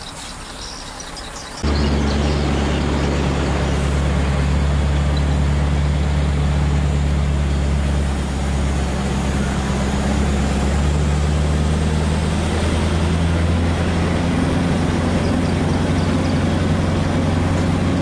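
Scania R580's V8 diesel engine running steadily, heard from inside the cab as a loud low drone whose pitch shifts slightly a few times. It comes in abruptly about two seconds in, after faint insect chirping.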